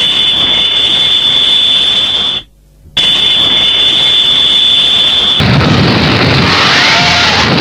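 Edited tokusatsu sound effects. A loud, steady high-pitched whine sits over a rushing hiss, cut off briefly about two and a half seconds in and then resumed. A little past five seconds in it gives way to a dense noisy rush with faint wavering tones.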